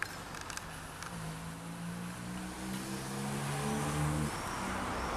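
A few light clicks in the first second, then a motor vehicle's engine hum that grows louder and stops about four seconds in. Road traffic noise builds near the end.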